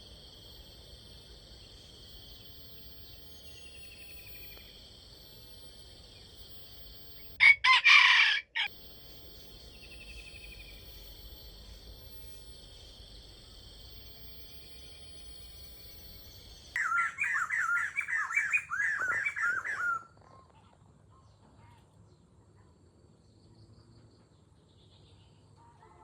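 Insects buzzing steadily in high, even tones, broken by a rooster crowing loudly for about a second. Later the insect buzz cuts off suddenly and a rooster gives a longer, loud crow of about three seconds.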